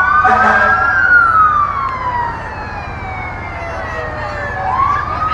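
Several fire truck sirens wailing at once: one rises and then winds slowly down over about three seconds, and another starts rising again near the end, over the steady low rumble of the trucks' engines.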